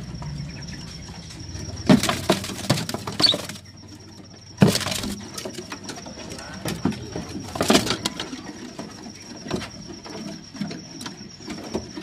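A male greater green leafbird (cucak ijo) moving about its wire cage: several sharp knocks and rustling flurries as it hops and flutters, with other caged birds calling in the background.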